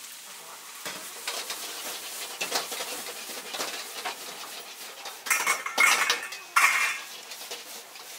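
Metal ladle scraping and clanking against a wok as egg fried rice is stir-fried, the rice sizzling underneath. A run of louder, ringing clangs comes about five to seven seconds in.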